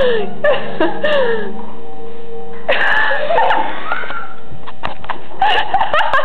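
Girls' high voices giggling and squealing in three bursts, their pitch swooping up and down, with a few light knocks in between.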